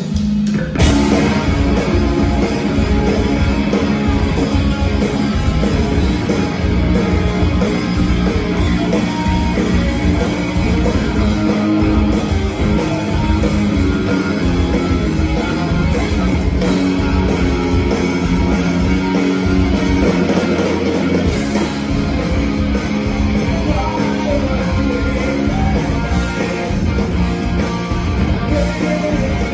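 Rock band playing live and loud, with guitars and drums all coming in together about a second in.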